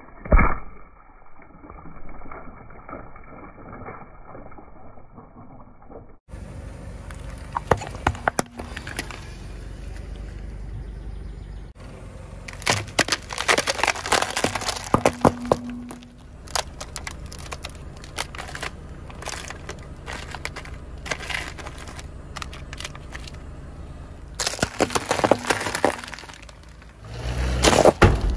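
A shoe stamps on a pile of water-gel beads, with a dull impact at the start. Then a car tyre rolls slowly over clear plastic cups full of gel beads, over a low steady rumble. The cups crackle and split and the beads crunch and squash in several bursts of sharp cracking, loudest near the end.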